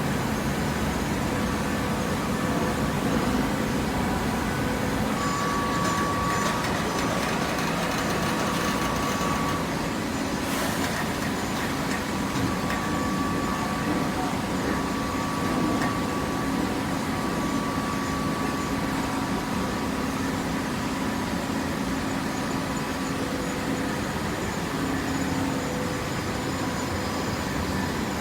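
Horizontal hydraulic cardboard baler running: a steady machine drone with faint held whining tones from its hydraulic pump and motor.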